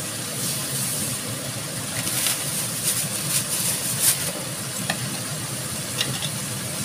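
Spiced sauce bubbling in a wok over a gas burner: a steady low rumble and hiss with scattered sharp pops, most of them about two to four seconds in.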